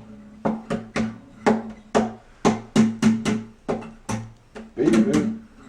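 Guitar being banged and strummed by a monkey: irregular hits, two or three a second, each leaving the same open strings ringing on low notes, with a quick flurry of strikes near the end.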